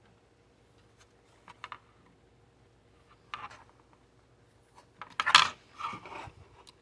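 A diecast model truck being handled: a few short clicks and scrapes of small metal and plastic parts. The loudest cluster comes about five seconds in.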